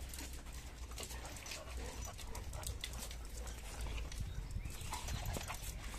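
Dogs in rough play, scuffling on concrete, with scattered light clicks and scrapes of paws and claws throughout.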